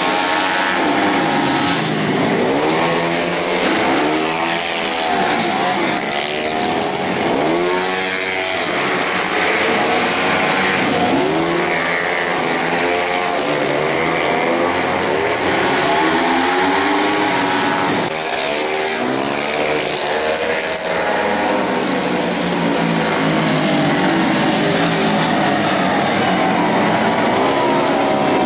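Several racing underbone motorcycles revving hard as they pass in a group, their small engines overlapping. The pitch repeatedly climbs and falls with throttle, gear changes and passing.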